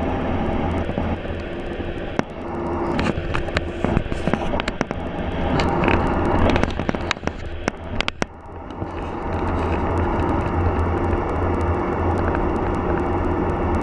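Road and engine noise heard from inside a moving vehicle at highway speed: a steady low drone, with scattered clicks and crackles between about three and eight seconds in.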